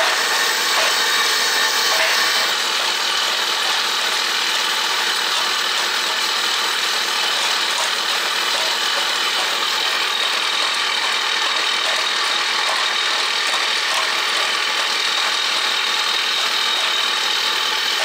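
Small electric motors of a miniature RC jaw crusher and its conveyor belts running steadily, a continuous whirring hum with a thin high whine, as they carry crushed rock.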